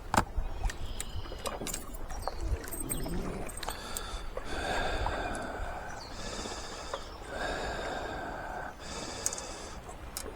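A person breathing heavily, with rough breaths about a second long repeating from about four seconds in. There are a few sharp clicks near the start.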